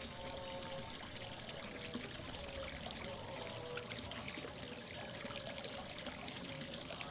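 Water trickling and splashing steadily, with faint held tones in the background.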